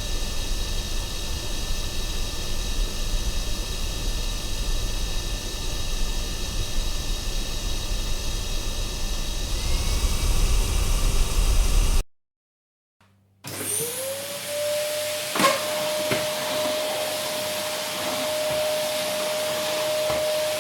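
Vacuum cleaner running with a steady hum that cuts off abruptly about twelve seconds in. After a second of silence a vacuum cleaner is switched on: its motor whine rises and settles to a steady high pitch, with a single knock a couple of seconds after it starts.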